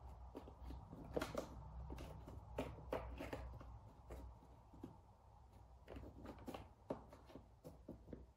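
Faint, irregular taps and scratchy rustles of a cat pawing at a toy snake on a corrugated cardboard scratcher, over a low steady room hum.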